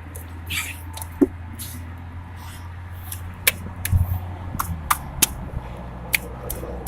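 Sharp plastic clicks and knocks of ignition coils and their connectors being pulled out and seated on an engine, over a steady low hum.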